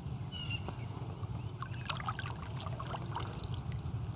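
Open-air ambience: a few brief bird chirps and scattered small water drips and ticks over a steady low rumble.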